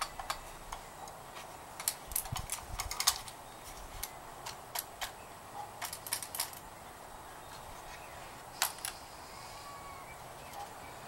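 Hand tools being handled: screwdrivers clicking and clinking against each other as they are picked up and laid down. A quick run of clicks about two to three seconds in, then single clicks spaced out.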